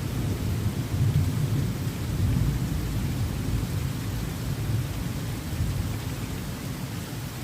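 Heavy monsoon rain falling steadily, an even hiss over a strong low rumble that swells about a second in.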